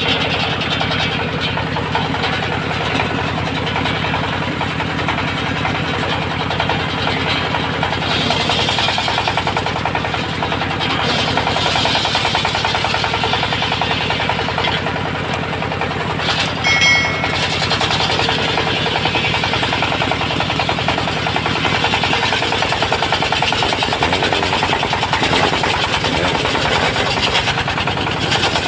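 Engine-driven circular sawmill running steadily with a fast pulsing beat while the blade saws a teak beam; the hiss of the cut rises and falls. A brief high squeal comes about 17 seconds in.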